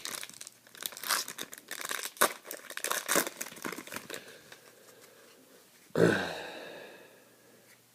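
Trading-card pack wrapper being torn open and crinkled, a busy run of crackles for about four seconds. About six seconds in, a single sharp knock that rings briefly as it fades.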